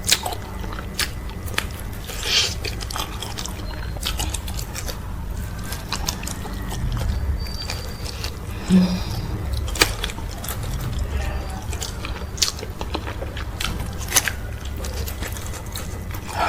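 Close-miked eating sounds from a meal of okra soup with cow foot and fufu: chewing and biting, with sharp wet mouth clicks scattered throughout, over a steady low hum.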